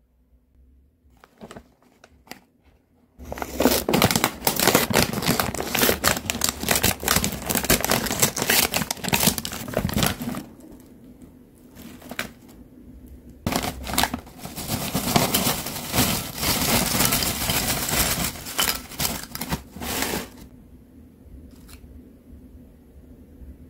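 Foil potato-chip bag crinkling as it is torn open, then chips rustling and rattling as they are shaken out onto a plate, in two long stretches with a short lull between.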